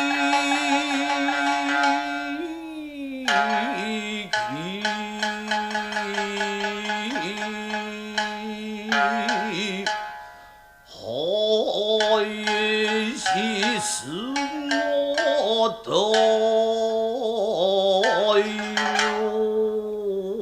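Nagauta music: shamisen plucking under a long, held melodic line that wavers and slides between notes. It breaks off briefly about halfway through, then comes back in.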